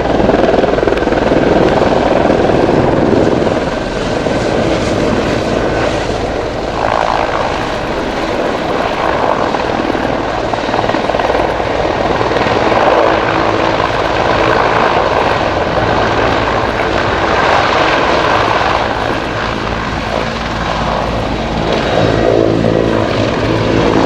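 Mil Mi-24V Hind helicopter flying, its twin turboshaft engines and main rotor making loud, continuous noise that swells and eases a little as it manoeuvres.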